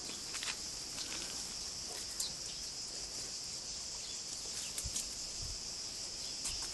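Steady high-pitched insect chorus, with scattered light clicks and rustles over it.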